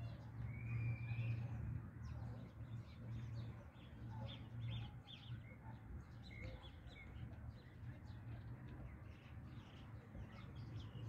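Birds chirping in many short, quick calls, with a few brief whistled glides, over a steady low hum.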